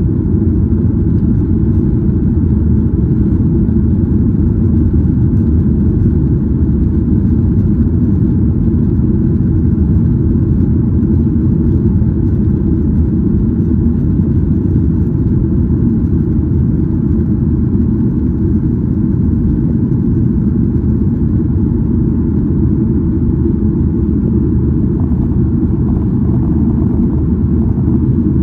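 Steady, deep cabin noise inside a Boeing 737-800 in flight: its CFM56 turbofan engines and the air rushing past the fuselage, heard from a window seat.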